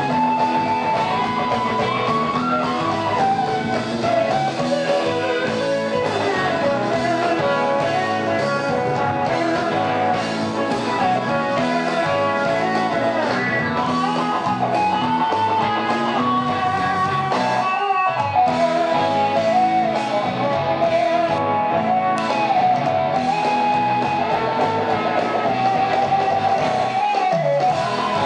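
Live blues-rock jam: a pedal steel guitar and a Les Paul-style electric guitar playing together, amplified, with lead lines that glide and bend in pitch.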